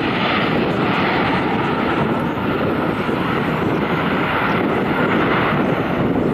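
Jet engines of a Ryanair Boeing 737 rolling along the runway: loud, steady jet noise with a faint high whine running through it.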